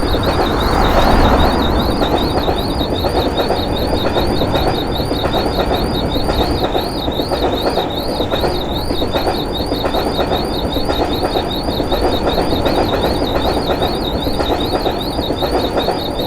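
A train running past a railroad crossing: a steady, loud rush of wheels on rails. Over it, the crossing's electronic warning signal warbles up and down about one and a half times a second.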